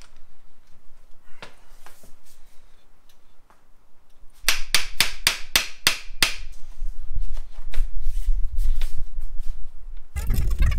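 A hammer strikes an old VW Beetle front spindle assembly in a quick run of about eight sharp blows, roughly four a second, about halfway through. A low rumble follows.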